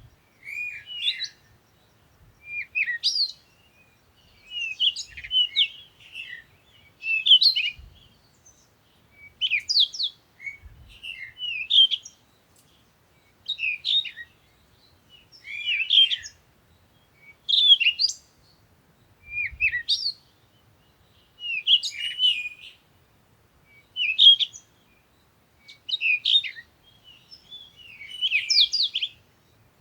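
Birds chirping in short, quick phrases, repeated every second or two with brief pauses between.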